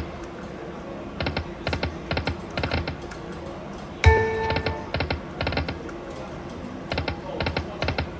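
Slot machine sound effects: runs of four or five sharp electronic clicks, about three a second, as the reels stop one after another, with pauses between the runs. A single loud chime rings out about halfway through and fades.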